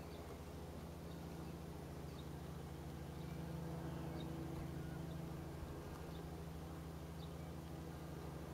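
Steady low mechanical hum, with faint short high chirps now and then.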